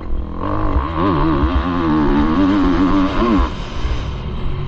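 Motocross bike engine heard from on board under hard throttle, its pitch wavering up and down as the rider works the throttle, then dropping off when the throttle closes about three and a half seconds in. Wind buffets the microphone throughout.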